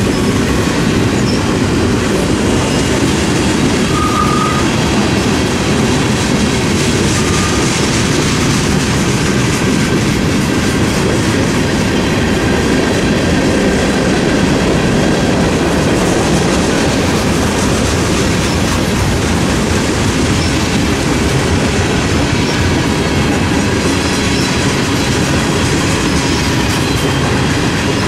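Freight train cars (centerbeam lumber flatcars, covered hoppers and tank cars) rolling steadily past close by, steel wheels clattering over the rail joints. A brief wheel squeal about four seconds in and another shorter one about seven seconds in.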